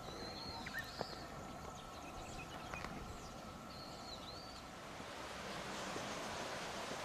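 A bird calling in two short runs of arched chirps over faint outdoor ambience with a few light clicks. From about five seconds in, a steady rushing noise grows louder.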